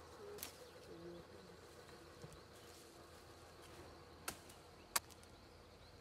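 Quiet outdoor background with a few faint, short, low bird calls early on and three sharp clicks: one about half a second in and two close together near the end, the last the loudest.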